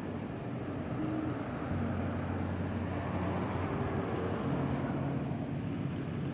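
Motor vehicle engines running in street traffic, a steady low engine hum over an even rushing noise.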